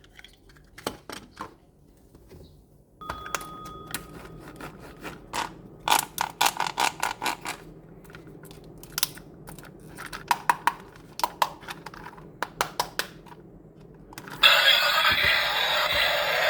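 Miniature toy construction trucks being handled: many irregular clicks and taps of small plastic and metal parts. About two seconds before the end, a much louder, steady buzzing electronic sound starts.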